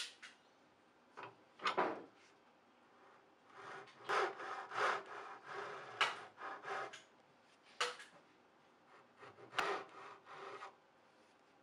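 Japanese pull saw cutting a small wooden block by hand: short rasping strokes in several separate runs with pauses between them.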